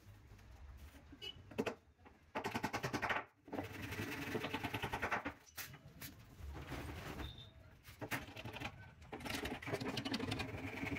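Saw cutting through plywood board in several bursts of rapid, evenly repeated strokes, each a second to a few seconds long, with short pauses between.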